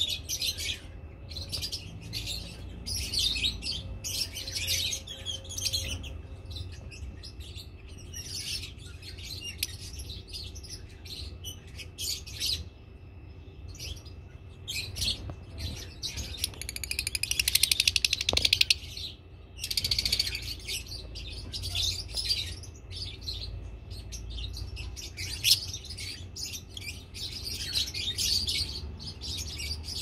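Lovebirds chirping in short, high bursts again and again, with a busier stretch of chatter about two-thirds of the way through, over a low steady hum.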